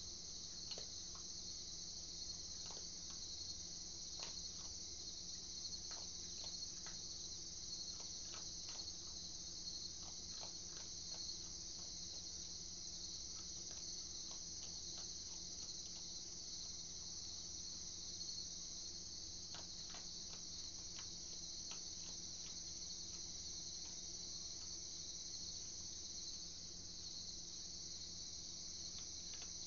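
A steady chorus of night insects, crickets chirring high and continuously, with faint irregular clicks scattered through it.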